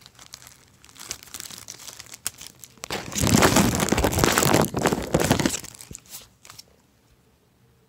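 Clear plastic bag crinkling as a hand rummages through it. The crackle is loudest and densest from about three to five and a half seconds in.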